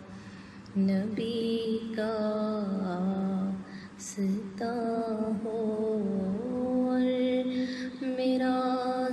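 A woman singing an Urdu naat, holding long, ornamented notes in slow phrases, with a short break at the start and another about four seconds in.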